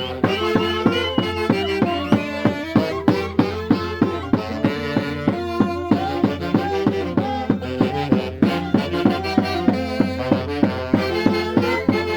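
Instrumental Santiago dance music from Peru's Mantaro Valley, with pitched melody instruments over a steady, quick beat of about three strokes a second.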